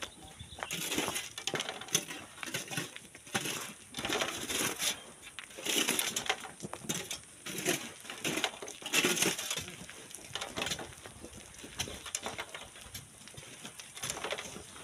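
Stones and gravel crunching and clinking in irregular bursts, about one a second, from manual sand-and-rock mining work; the bursts thin out in the last few seconds.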